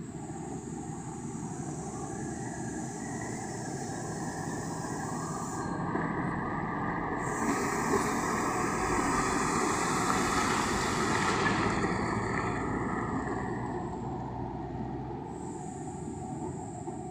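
A loaded Tata truck's diesel engine and tyres passing close by: the sound builds to a peak about ten seconds in, then fades as the truck drives away.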